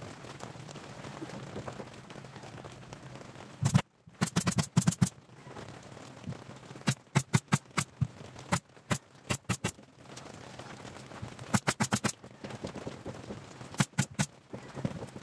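Pneumatic nail gun firing into the plywood speaker cabinet in five quick bursts of sharp shots, several shots a second, the loudest burst about 4 seconds in.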